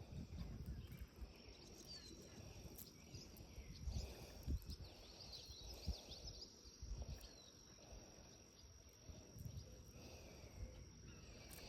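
Faint outdoor ambience by a pond: a steady thin high-pitched whine, brief faint chirps of small birds a couple of seconds in, and scattered low bumps from wind or handling on the microphone.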